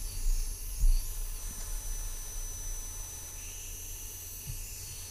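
Belt grinder running with a forged carbon-steel knife blade held against the abrasive belt: a steady grinding hiss over a low hum.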